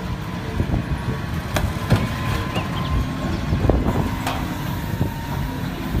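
Large forklift working: its engine runs with a steady low rumble, with scattered knocks and clanks as it pushes a load into a shipping container.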